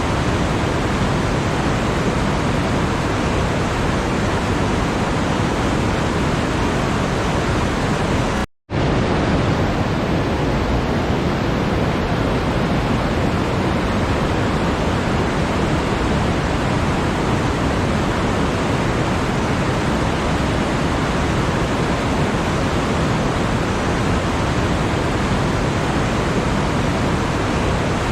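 Steady, even rushing noise like pink noise, with no rhythm or change, cut by a brief dropout to silence about eight and a half seconds in.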